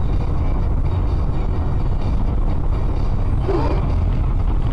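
Steady low rumble of a car's engine and tyres on a highway, heard from inside the car. About three and a half seconds in, a brief wavering tone sounds over it.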